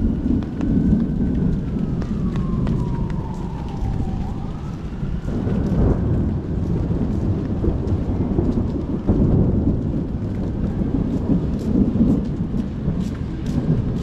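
Thunderstorm: heavy rain under a long, continuous low rumble of thunder. A distant siren wails faintly, falling and then rising in pitch, and sharp drop ticks pick up near the end.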